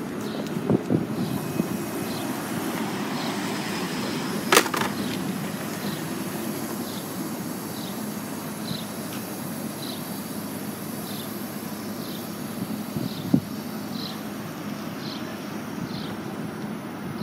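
2016 Nova Bus LFSe battery-electric city bus driving past at low speed over steady street traffic noise. A sharp knock comes about four and a half seconds in, another smaller one near the end, and a short high chirp repeats about once a second throughout.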